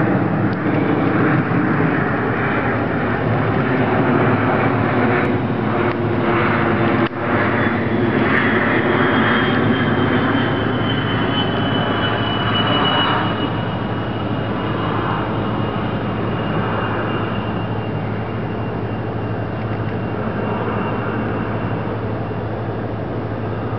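Small twin-engine jet circling overhead: a steady, loud engine noise throughout, with a high turbine whine that slides down in pitch about ten seconds in as the plane passes.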